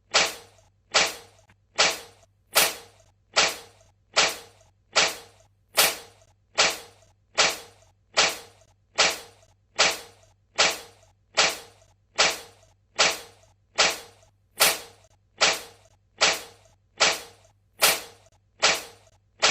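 Cat sneezing over and over: short, sharp sneezes, each dying away quickly, at an even pace a little faster than one a second.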